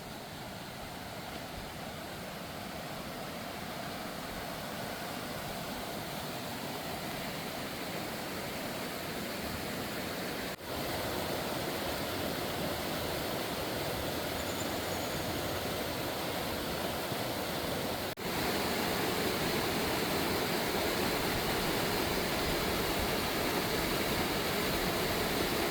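Roar of the Roaring Fork, a rushing mountain stream: a steady roar of water that grows louder over the first several seconds. It breaks off for an instant twice, coming back louder each time.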